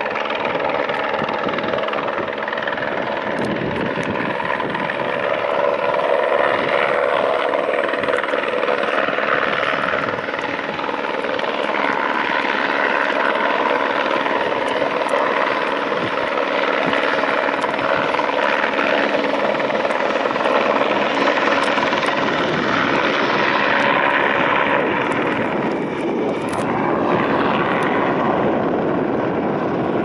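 Eurocopter AS350-family (Squirrel) helicopter flying low nearby: steady rotor and turbine noise with a whine of several held tones. The higher hiss fades near the end.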